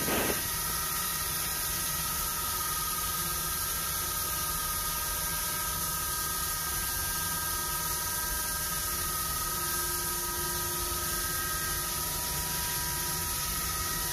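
Haas UMC-500SS five-axis CNC mill drilling a copper slug with a 0.149-inch drill under spraying coolant: a steady hiss of coolant spray with a few steady high tones over it.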